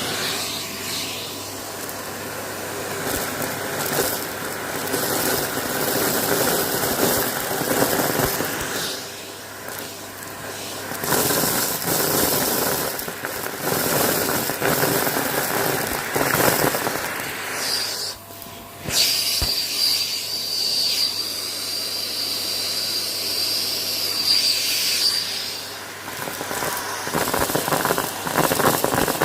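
Close-up crunching and crackling of something being crushed, in uneven surges, with a thin high squeal lasting several seconds past the middle.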